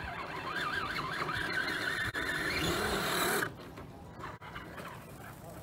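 Electric motor and geartrain of an RC rock crawler whining under throttle, the pitch wavering up and down as the throttle is worked. It cuts off suddenly about three and a half seconds in.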